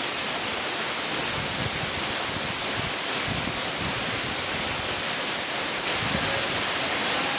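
Waterfall: falling water rushing with a steady, even hiss.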